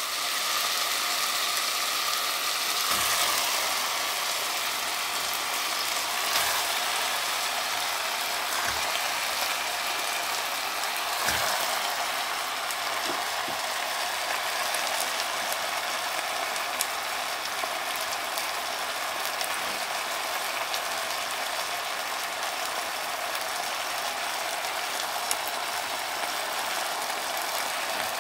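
Oil sizzling with a steady, dense crackle in a stainless steel pot as salmon head pieces fry on sautéed onion and tomato, with a few soft knocks.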